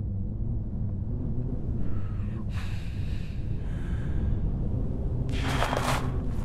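A tractor engine running with a steady low rumble. A breathy rush of noise comes over it about two seconds in, and a louder one about five and a half seconds in.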